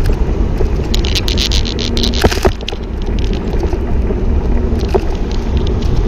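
Wind buffeting the microphone of a cyclist riding in traffic: a steady low rumble, with a run of sharp crackles from about one to two and a half seconds in.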